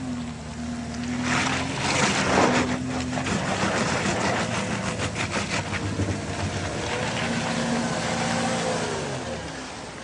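Porsche Cayenne's engine pulling under load as the SUV crawls over rough off-road ground, with a burst of tyre and dirt noise a second or two in and clicking from the wheels shortly after; the engine eases off near the end.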